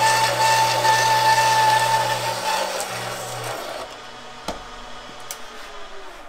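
Drill press running a 2-inch bimetal hole saw through 1/4-inch hot rolled steel, a steady grinding cut with a high ringing tone, smooth and without chatter. After about two and a half seconds the cut fades away as the saw finishes and is lifted. The press winds down, with a single click about four and a half seconds in.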